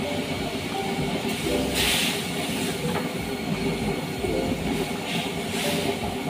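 Water heating in a metal wok, a steady hiss and rumble, with two brief splashing bursts, about two seconds in and near the end, as slabs of raw pork belly are lowered in to parboil.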